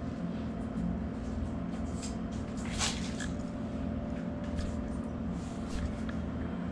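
Steady low hum of room machinery with a few faint clicks and rustles of small items being handled, and one sharper click about three seconds in.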